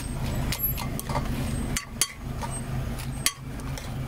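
A few sharp clinks and knocks, three or four in all, over a steady low hum.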